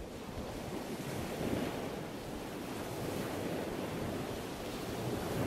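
Ocean surf washing in as a steady rush of waves. It swells louder about a second and a half in and again near the end.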